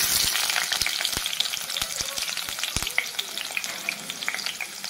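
Sliced onions dropped into hot oil in a stainless steel kadai, breaking out all at once into a dense sizzle full of small crackles as they start to deep-fry. A few low knocks sound through it.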